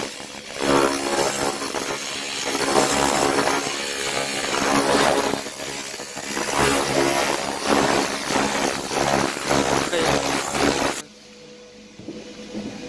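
Fiber laser cleaner ablating heavy rust from a pitted steel plate: a loud, dense crackling hiss over a steady machine hum. The crackling cuts off suddenly about eleven seconds in when the laser stops, and the hum carries on.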